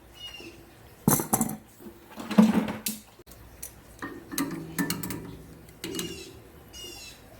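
Metal tools and fittings clinking and knocking while a part is worked loose from a water heater: two louder clanks in the first few seconds, then a run of lighter clicks. A few short high chirps sound among them.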